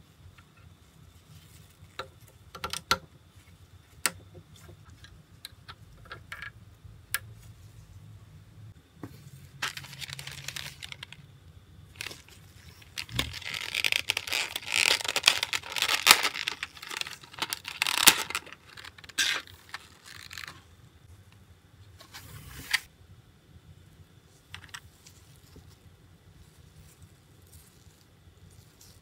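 Small plastic toy parts and a clear plastic blister pack handled in gloved hands: scattered light clicks and taps, then several seconds of dense plastic crackling around the middle as the blister is worked open.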